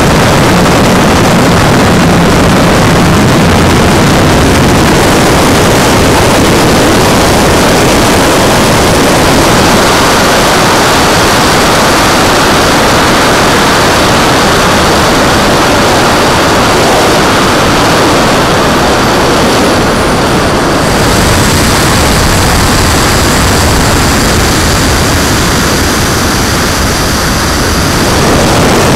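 Turbine-powered RC jet in fast flight, heard through its onboard camera: a loud, steady rush of turbine and airflow noise. A faint high whine holds steady through the second half.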